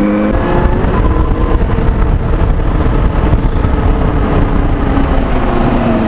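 Benelli TNT 600i inline-four motorcycle engine running at road speed under heavy wind rush on the microphone, its note sliding lower near the end.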